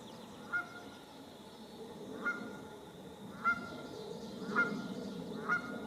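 An animal's short call repeated five times, about once a second, each one brief and sharp on a single pitch.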